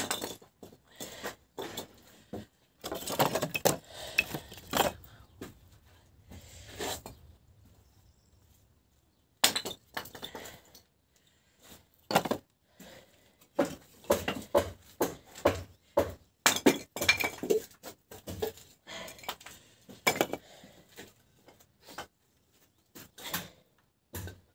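Pieces of wood knocking and clattering as they are handled: a long run of irregular sharp knocks, with a quieter gap about seven to nine seconds in.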